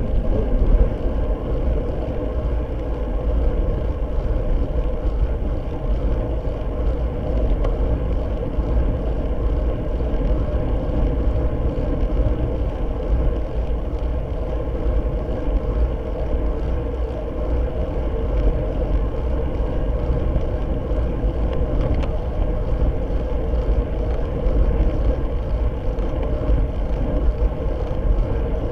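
Steady wind and road noise from a bicycle riding at speed, picked up by a Fly6 camera-light mounted on the bike: wind rushing over the microphone and tyre hum, strongest in the low end, with no distinct events.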